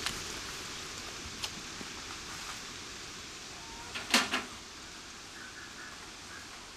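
Dry sticks and brush being handled and gathered, with one sharp crack about four seconds in, over a steady outdoor hiss.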